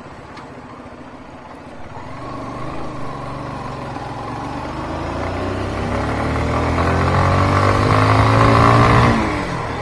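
Honda Karizma motorcycle's 223 cc air-cooled single-cylinder engine accelerating hard, its revs climbing steadily and growing louder for several seconds, then dropping sharply near the end as the throttle closes.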